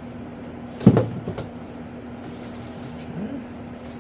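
A loud thump about a second in, followed by a few lighter knocks, as foam airplane parts are handled and lifted out of a cardboard box. A steady low hum sits underneath.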